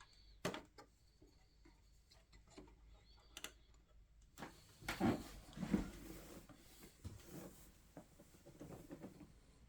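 Hands handling computer hardware: scattered small clicks and taps, with a busier stretch of knocks and rubbing about five seconds in.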